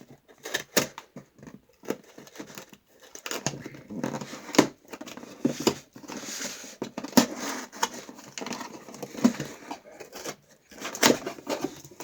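Packaging of a puzzle cube being torn and pulled open by hand: irregular tearing, crinkling and rustling with sharp clicks and knocks, stopping and starting throughout.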